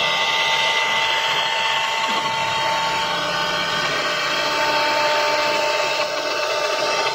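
4-axis CNC router spindle running with a steady high whine over a continuous rough machining noise.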